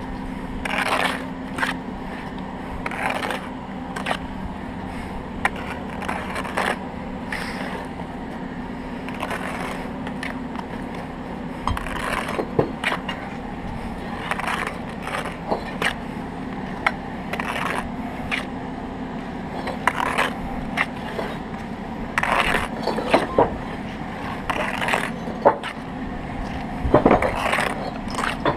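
Steel brick trowel scraping and cutting wet mortar on brick and block: a steady run of short, irregular scrapes and taps as bricks are buttered and laid. A faint steady low hum runs underneath.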